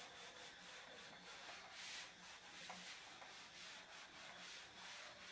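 Faint rubbing of a chalkboard duster wiping chalk off a blackboard, in repeated strokes.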